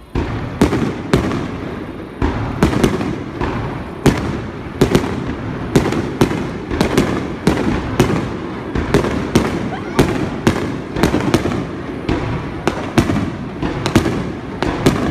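Fireworks finale: aerial shells bursting in rapid succession, a few sharp bangs a second over a continuous rumble of overlapping reports, starting suddenly and not letting up.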